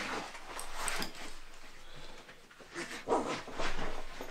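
Cordura nylon backpack and its webbing shoulder straps rustling and rubbing as the Wisport Ranger 30-litre pack is swung on and settled onto the shoulders.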